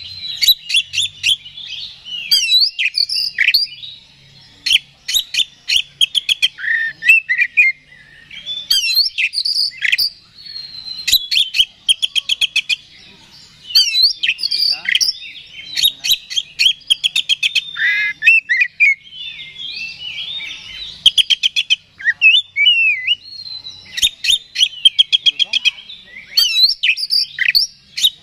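Male oriental magpie-robin (kacer) singing loudly in varied phrases of whistles and fast trills. Each phrase lasts a second or two, with short pauses between them.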